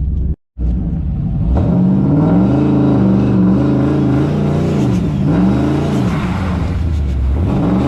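Turbocharged 6.0-litre V8 of a GMC 2500HD pickup pulling under acceleration, its pitch climbing and dropping back a few times, after a brief dropout of sound about half a second in.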